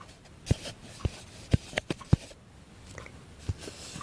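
Light clicks and taps from handling a small K'nex plastic table and its pieces, about half a dozen at uneven intervals.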